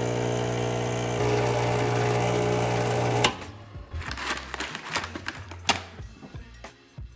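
A small electric motor running with a steady hum, which cuts off with a click a little over three seconds in. Scattered light clicks and knocks follow.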